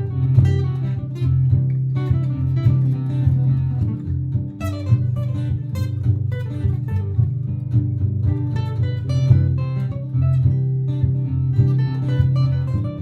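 Martin GPCPA4 acoustic guitar playing a looped part of sustained low notes, with plucked single notes and strums improvised over it.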